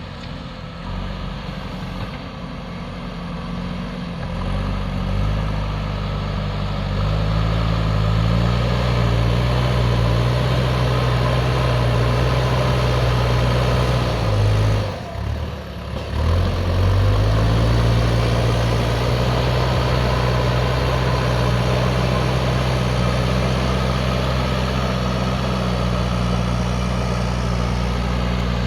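JCB backhoe loader's diesel engine running under load, its revs climbing over the first several seconds and then holding steady. About halfway through the sound dips briefly before the engine comes back up to the same steady pitch.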